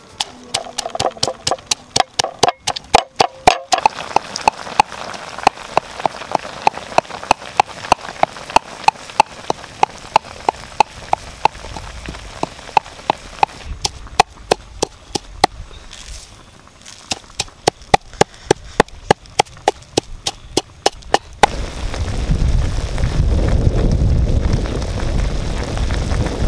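Green chilies pounded with a pestle in a wooden mortar: sharp knocks at about three a second, briefly pausing halfway, then stopping. Near the end a steady low rumble takes over as a pot of chicken and cabbage cooks.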